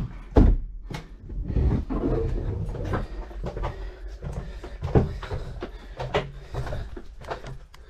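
Footsteps and knocks going down a flight of stairs, irregular thuds and bumps, with a door-like bang about half a second in.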